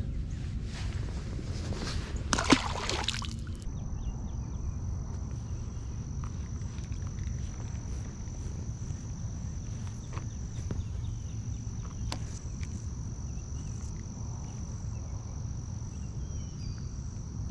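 Wind buffeting the microphone in a steady low rumble, with water and gear handling noises and a sharp knock in the first few seconds, then a thin high whine from about four seconds in.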